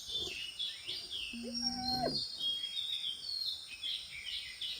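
Wild birds chirping over and over in short falling notes, with one low drawn-out animal call about a second and a half in that rises in pitch at its end.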